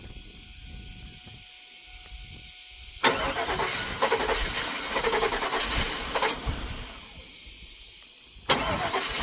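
A 2000 Cadillac Escalade's V8 being cranked by the starter in two attempts: one starts suddenly about three seconds in and lasts about four seconds, and a second begins near the end. The engine is not settling into a run, and the owner takes it to be flooded, with a smell of gas.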